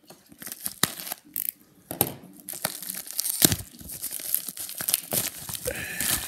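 White plastic poly mailer being torn open and crinkled by hand, in irregular rips and rustles, with one sharp rip about three and a half seconds in.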